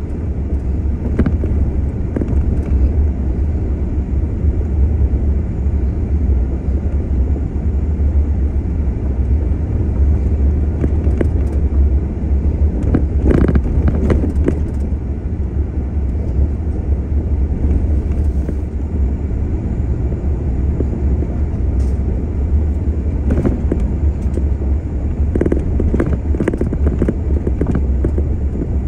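A vehicle driving on a gravel road: a steady, deep rumble of engine and tyres, with scattered short knocks, a cluster of them about halfway through and more near the end.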